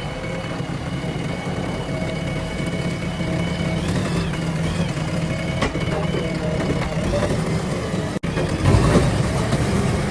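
Diesel engine of a heavy earth-moving machine running steadily. It drops out for an instant about eight seconds in and comes back louder.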